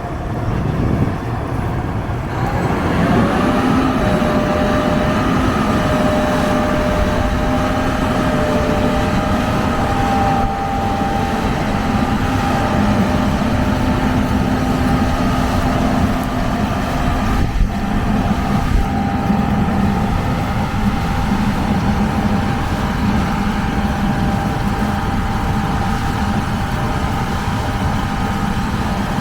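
Combine harvester running steadily during soybean harvest, a low rumble with a whine that rises in pitch about three seconds in and then holds steady. A sharp knock about halfway through.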